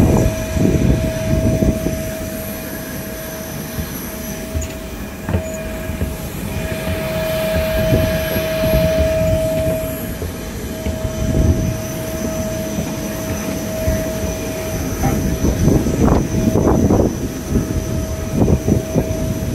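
Steady high whine from the parked Airbus A350-1000 and its ground machinery, over a fluctuating low rumble. A few footfalls on the metal boarding stairs sound near the end.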